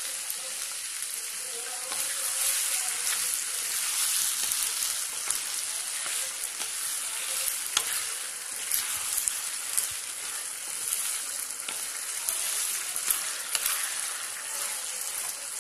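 Onions, capsicum and green chillies in soy sauce and ketchup sizzling steadily in a frying pan as they are stir-fried. Scattered sharp clicks and scrapes of the stirring against the pan come more often in the second half.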